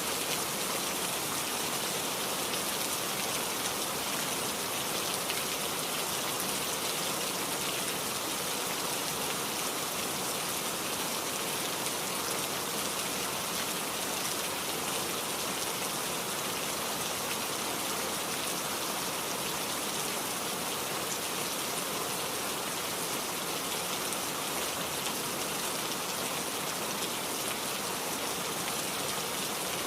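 Heavy rain falling steadily, an even hiss of many drops without breaks or thunder.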